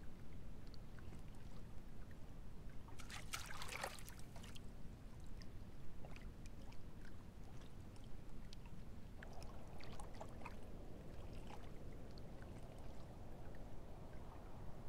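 Faint, gentle lapping and trickling water, with a brief cluster of small splashes about three to four and a half seconds in and scattered light drips after.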